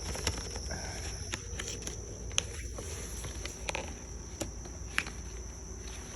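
Handling noise of a cardboard product box being opened and its contents pulled out: scattered light clicks and taps, about one a second, over a steady faint high-pitched whine.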